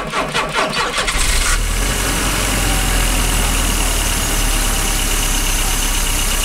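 1984 Volvo 245's red-block four-cylinder engine making a cold start at minus ten: it cranks on the starter for about a second, catches, and settles into steady running.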